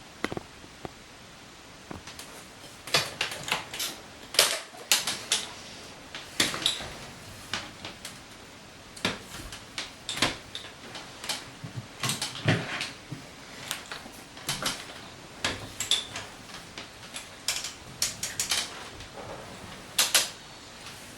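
Irregular sharp clicks and taps over a low steady hiss, one to three a second, with a few louder ones.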